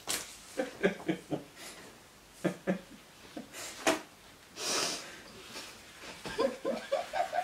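Stifled laughter, held back behind a tissue: short snorts and breathy bursts, a longer hissing exhale about two thirds of the way in, and a run of quick laughing sounds near the end.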